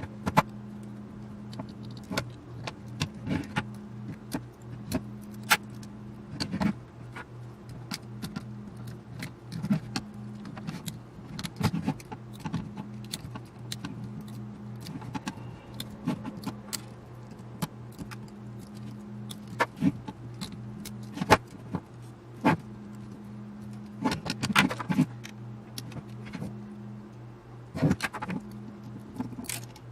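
Irregular sharp metallic clicks and clinks of small metal parts and tools being handled while dismantling a radio control box, over a steady low hum.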